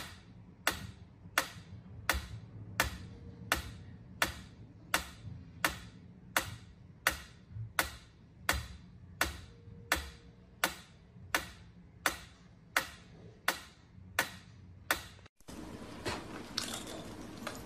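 Mechanical pendulum metronome ticking steadily, about three sharp ticks every two seconds, for some fifteen seconds until a cut ends it, leaving a faint steady hiss.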